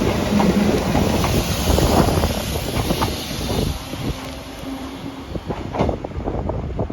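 A two-car JR 115 series electric train moving through the station, its wheels clicking and knocking over the rail joints. It is loud for the first few seconds, then quieter after about four seconds.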